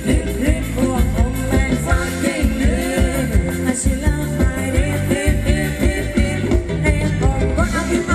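Loud amplified live band playing Thai ram wong dance music, a singer's voice over a steady driving beat.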